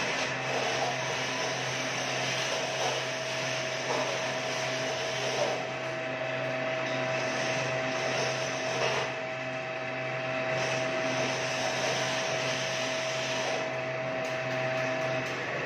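A 2-ton chain pulley block on a hand-operated travelling crane being worked by its hand chain, the chain rattling and clicking through the block's gearing. A steady mechanical hum runs underneath, and a constant tone in it cuts off near the end.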